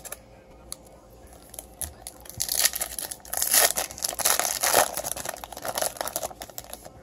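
Foil wrapper of a 2018 Topps Chrome card pack being crinkled and torn open by hand: a dense crackling rustle that starts about two seconds in, is loudest in the middle, and thins to a few small crinkles near the end.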